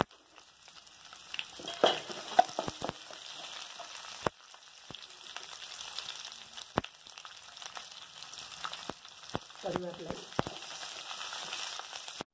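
Sliced onions frying in hot oil in a stainless steel kadai, a steady sizzle as they are stirred with a wooden spatula, with scattered sharp clicks and knocks throughout.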